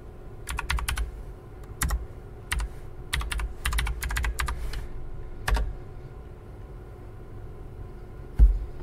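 Computer keyboard typing in short runs of keystrokes, a username and password being entered, until about five and a half seconds in. Near the end there is a single loud thump.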